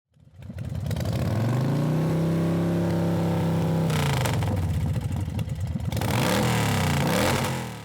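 Motorcycle engine revving: it fades in, climbs to a held high rev, turns rougher about halfway, gives a couple of quick revs near the end and fades out.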